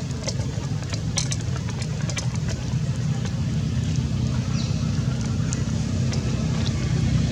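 Steady low engine hum, like a motor idling, with scattered faint clicks and one brief high squeak about four and a half seconds in.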